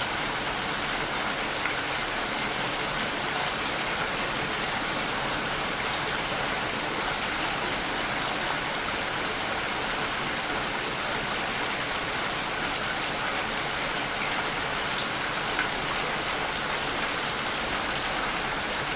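Steady rain falling outside a house, an even hiss of rainfall with now and then a single drop hitting close by.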